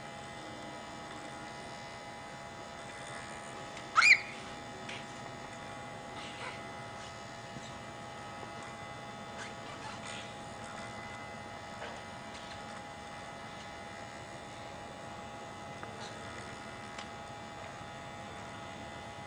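Steady electrical buzzing hum. About four seconds in comes one short, loud, rising high-pitched squeal.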